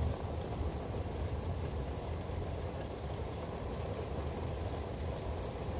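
Steady rain, with a low rumble underneath.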